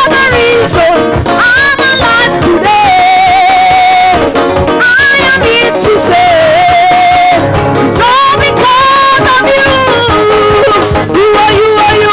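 Live worship music: a voice sings long held notes that waver in pitch, over a band accompaniment with a steady beat.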